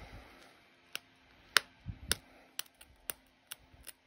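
Pressure flaking an opalite arrowhead with a copper-tipped flaker: sharp, separate clicks as small flakes pop off the edge, about one every half second from about a second in.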